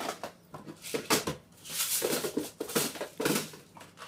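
Small clear plastic tackle containers being handled, stacked and set into a plastic tackle box tray: an irregular series of plastic clicks, knocks and short rattles.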